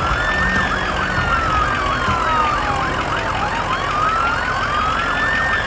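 Emergency-vehicle siren with two tones sounding together: a slow wail rising and falling about every three seconds, and a fast warbling yelp over it.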